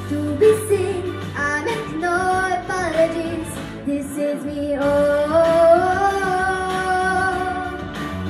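A young girl singing into a handheld microphone over a pop backing track: several short sung phrases, a brief break, then a long held note in the second half.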